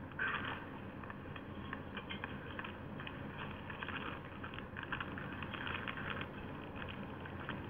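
Continuous irregular crackling and rustling noise, with no speech.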